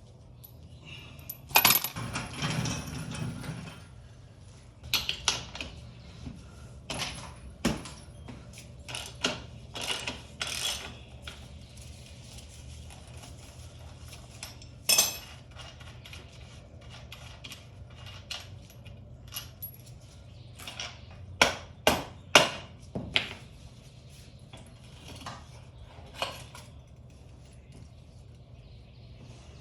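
Hand tools and loose metal parts clinking and clattering during a motorcycle teardown: scattered sharp clinks, a longer rattling clatter near the start, and a quick run of clinks about two thirds of the way through.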